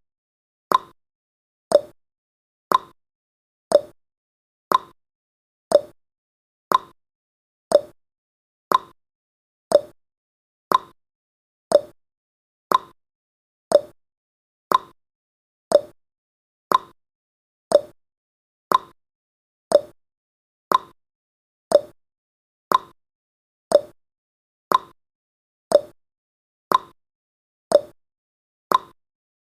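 Countdown timer's ticking sound effect: a short, sharp tick once every second, evenly spaced, marking each second as it counts down.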